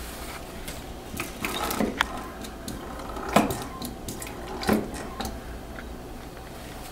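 Plastic soda-maker bottles being handled on a counter: a series of short knocks and clicks, the loudest about three and a half and nearly five seconds in, with some liquid poured into the bottle.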